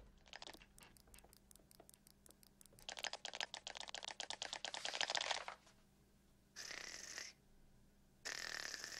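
Animation sound effects of a cockroach puppet's scurrying feet: quick light clicks, sparse at first, then a dense rapid pattering run in the middle. Near the end come two short hissing sounds, each lasting under a second.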